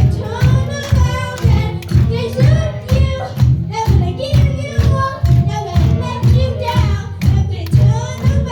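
A song playing loudly with a steady beat about twice a second and a singing voice over it.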